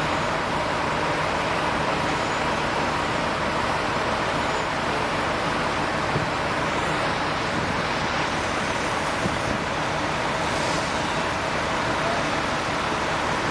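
Steady, unbroken noise of running vehicle engines and traffic, with a faint steady tone under it.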